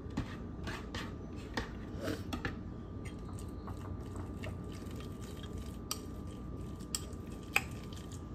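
Spoon clinking and scraping against a bowl while a chicken and avocado filling is mixed: scattered light clicks, one sharper clink near the end, over a faint steady hum.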